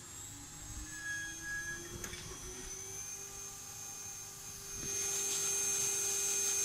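CNC router spindle motor with new bearings, test-run after the repair: a whine rising in pitch as it spins up over the first few seconds, then holding steady. It gets louder and hissier about five seconds in.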